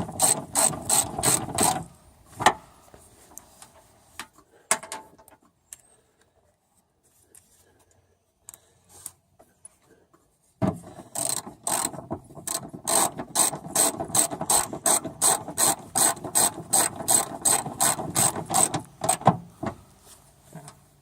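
Hand socket ratchet clicking as it runs nuts down onto the rear spoiler's mounting studs. There is a burst of clicks at the start, then a long pause with only a few stray clicks, then steady clicking at about three or four a second from about ten seconds in until near the end.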